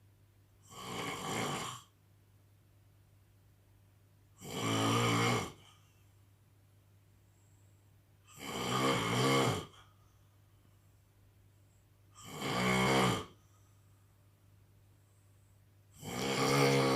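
An elderly man snoring in his sleep: five loud, throaty snores about every four seconds, each lasting about a second, the first one softer than the rest.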